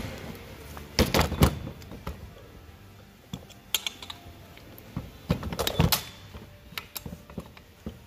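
Clicks, knocks and clatters of hand tools and steering-column parts being worked and handled. A cluster of sharp knocks comes about a second in and another around five and a half seconds, with scattered light ticks between.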